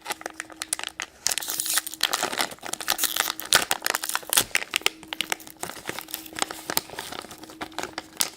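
A Monster High blind bag's packaging being torn open and crinkled by hand: a long run of irregular crackles, busiest in the middle.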